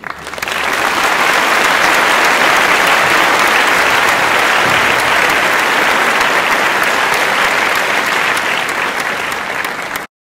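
Recorded audience applause. It swells in over the first second, holds steady as dense clapping, then cuts off suddenly near the end.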